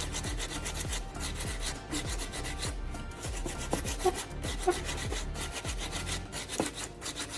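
Coarse P80 sandpaper rubbed back and forth by hand over a hardened baking-soda-and-super-glue filler patch on a plastic fender, in quick, even rasping strokes.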